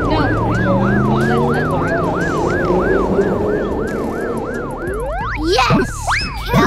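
Emergency siren in a fast up-and-down wail, about three sweeps a second, over a low rumble. It fades about five seconds in, giving way to a few quick rising whistle-like sweeps and whooshes.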